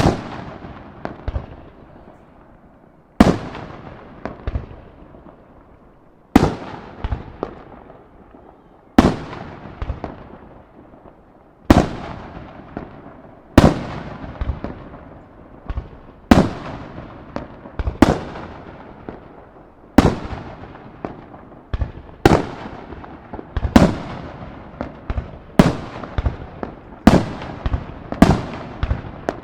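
Aerial firework shells bursting in the sky, a sharp bang followed by a rolling echo each time. The bursts come about every three seconds at first, then faster, about every second and a half, in the second half.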